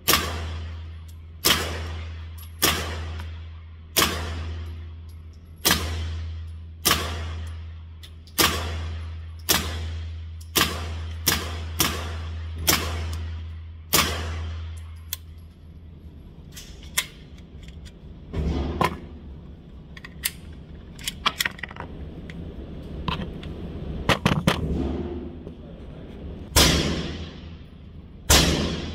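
Suppressed 9mm AP5-P pistol with an Obsidian 9 silencer firing single shots of 115-grain ammunition, each a sharp crack with a reverberating tail, about one shot every second and a quarter for the first half, over a low hum. After that come scattered, mostly fainter shots, some in quick pairs, and two louder ones near the end.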